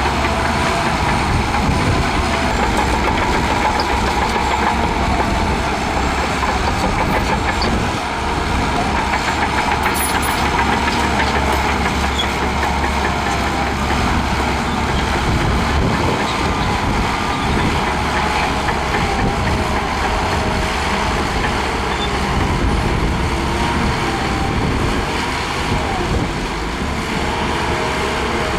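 Shantui DH17C2 bulldozer's diesel engine running steadily while working sand, with a faint wavering whine over the engine noise.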